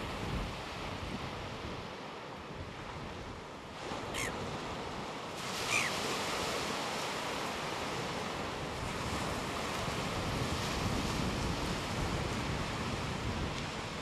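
Surf washing onto a sandy beach, with wind buffeting the microphone; the noise swells a little about halfway through. Two short, high bird calls come through briefly about four and six seconds in.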